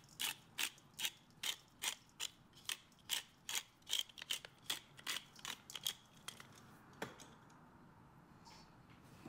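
Pepper mill grinding black pepper: a run of evenly spaced ratcheting clicks, about two and a half a second, that stops about six seconds in, with one last click a second later.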